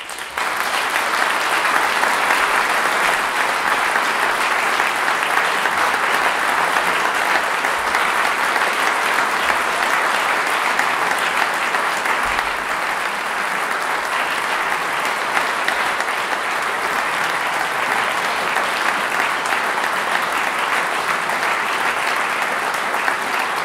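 A large audience of about 300 starts applauding at once and keeps clapping at an even level.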